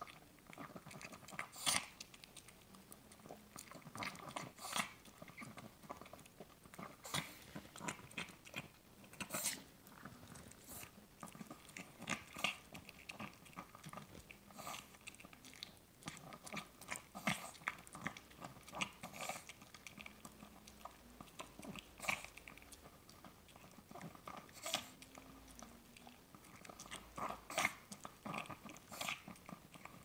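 Chihuahua eating brown rice moistened with meat drippings from a small glass bowl: steady wet chewing and smacking, with irregular sharp clicks several times a second.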